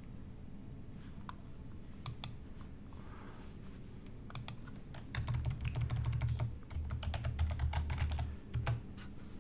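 Typing on a computer keyboard: a few scattered keystrokes, then about halfway in a fast run of typing lasting about four seconds, with dull low thuds under it.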